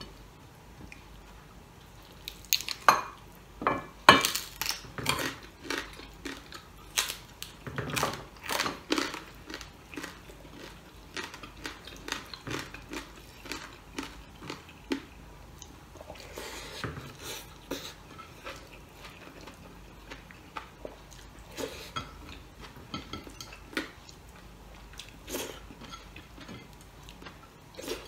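Eating with the hands at a table: irregular clicks and clinks of fingers, food and bone against a plate, with chewing. The clinks are loudest a few seconds in.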